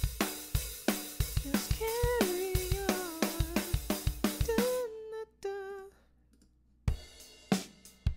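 Sampled acoustic drum kit loop playing a steady groove of kick, snare and hi-hat, with a bending pitched melody line over it from about two seconds in. The loop stops about five seconds in, a short note rings out, and after a brief pause a different drum loop starts near the end.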